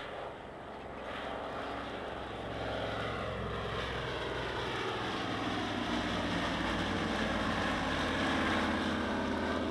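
Avro Anson's twin Armstrong Siddeley Cheetah radial engines droning in flight, slowly growing louder with a slight fall in pitch as the aircraft comes closer.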